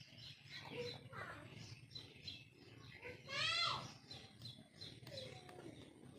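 Birds chirping in short, quickly repeated calls, with one louder drawn-out cry that rises and falls about three and a half seconds in.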